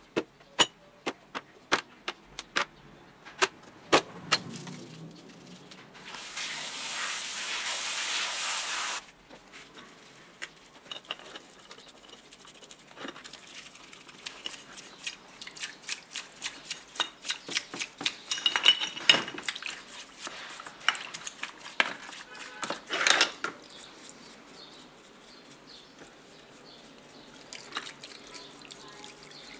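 Metal parts of a Hitachi CJ 60V jigsaw clattering as they are set into a plastic tray, then liquid poured into the tray for about three seconds. After that come wet scrubbing and repeated clicks and knocks as the aluminium gear housings and a gear are washed and brushed in soapy water.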